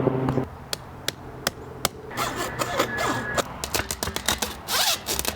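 Hammer blows on an aluminum wheel rim: a few single metallic knocks about half a second apart, then a quicker, irregular flurry of strikes, some with a short ring.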